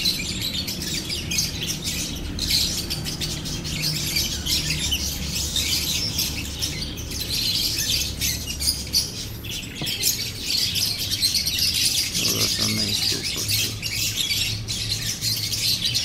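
Many small birds chirping and chattering without a break, a dense high-pitched chorus.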